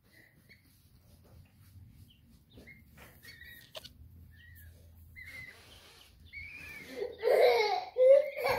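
Baby chicks peeping faintly in a few short, scattered chirps. About seven seconds in, a young child's loud, high voice breaks in, crying or babbling.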